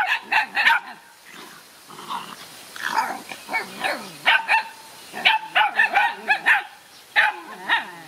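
Young dogs barking: short, sharp yaps that come in quick runs of three or more, with a few drawn-out whining tones between.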